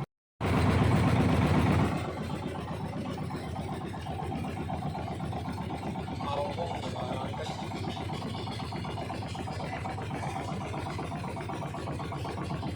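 A vehicle engine running steadily. It is louder for about the first second and a half, just after a brief dropout, then settles to an even drone.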